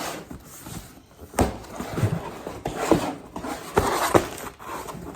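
A LEGO set's parts bags and box being handled: plastic rustling and crinkling, with several sharp knocks as bags and box are set down.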